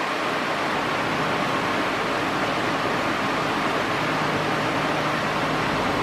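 Britânia Mega Turbo 40 pedestal fan (130 W) running at top speed: a loud, steady rush of air with a faint hum, about 76 dB on a sound meter. It is noisier than its rival while moving less air, which the owner puts down to its nearly straight blades.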